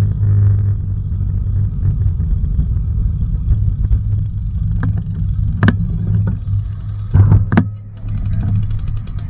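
Steady low rumble of wind and road noise on a cyclist's camera microphone while riding. There are a few sharp clicks and knocks about six seconds in and again around seven seconds, then a brief drop in level.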